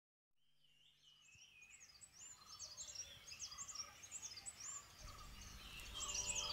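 Birds chirping and singing, fading in from silence: many quick, repeated high chirps that grow louder. A low rumble swells in about five seconds in.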